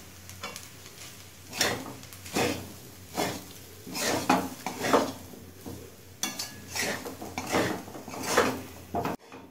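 Wooden spatula scraping and tossing fusilli pasta around a metal kadai, about one stroke a second from a second and a half in, as spice powder is stirred through the pasta.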